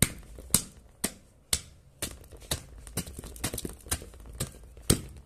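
A pestle pounding dry soil clods in a metal basin: sharp knocks about twice a second, then quicker, lighter taps, with one louder strike near the end, crushing the lumps to powder.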